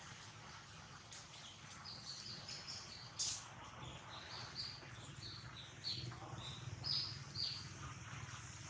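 A run of short, high-pitched animal chirps, several a second, starting about two seconds in, with one sharper, louder note just after three seconds.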